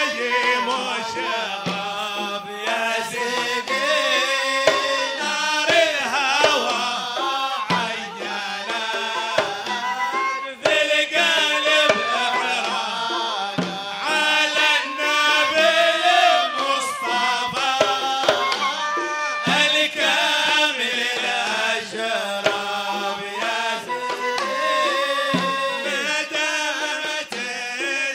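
Men singing a Hadrami zarbadi song, accompanied by hand drums beating a steady rhythm, with a deeper drum stroke recurring at even spacing.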